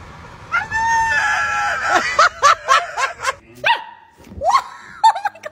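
A dog howling in one long call, then a quick run of short barks and a few rising yelps.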